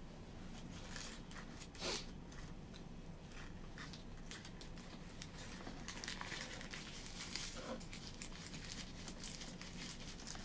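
Clear plastic wrap crinkling as it is handled and folded by hand, in many quick crackles, with one louder crackle about two seconds in.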